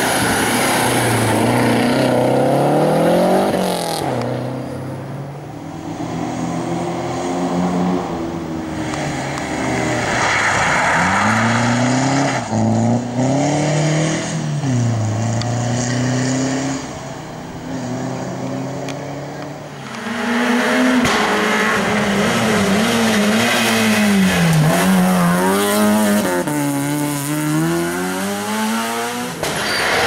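Rally car engines, starting with a Lancia Delta Integrale, driven hard past one after another. Each engine revs up and drops through gear changes and lifts, and the sound switches abruptly from one car's pass to the next every few seconds.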